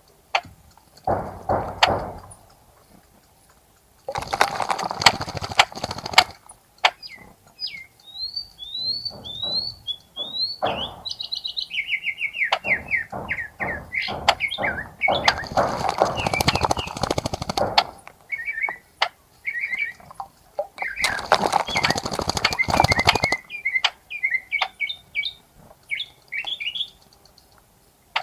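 Small birds bathing in a bird bath: three spells of splashing and wing fluttering, each a second or two long, with chirping calls in between, including a quick run of repeated chirps midway.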